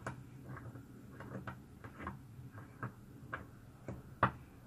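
Faint, irregular metal clicks and ticks as the threaded cap of a coin ring die is unscrewed by hand, with one sharper click near the end.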